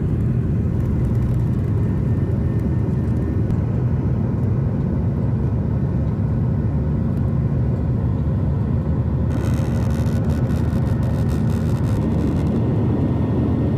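Airbus airliner's jet engines at takeoff thrust, a loud steady rumble and whir heard inside the cabin as the plane rolls down the runway and climbs away. About nine seconds in, a crackling hiss joins the rumble.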